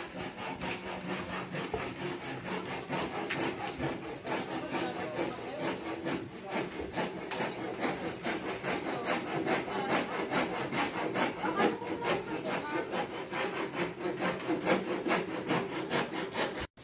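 Hand saw cutting through wood in quick, steady back-and-forth strokes.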